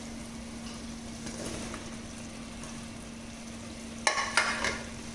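Chicken masala frying gently in a pot, a soft steady sizzle with a steady low hum under it. About four seconds in, a brief louder burst of sizzle and clatter as raw potato pieces go into the hot pot.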